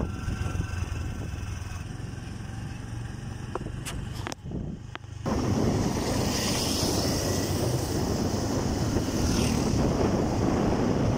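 Wind rushing over the microphone with a motorcycle engine running underneath as it rides along the road. The rush comes in suddenly about five seconds in, after a quieter stretch of low rumble and a few clicks.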